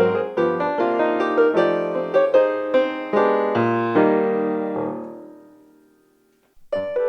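Solo piano music playing a lively run of notes, then a held chord that fades almost to silence before the piano starts up again near the end.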